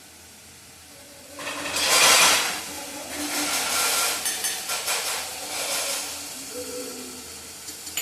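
Loud hissing from food cooking on a stove, starting suddenly about one and a half seconds in and going on unevenly with some crackling.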